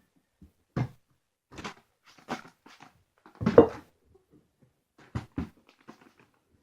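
Irregular short scrapes, knocks and rubber squeaks as a small lubricated tire is forced onto its rim, the loudest about halfway through.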